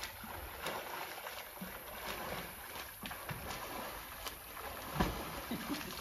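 A swimmer's front-crawl strokes and kicks splashing in lake water: a run of uneven soft splashes, with a louder thump about five seconds in.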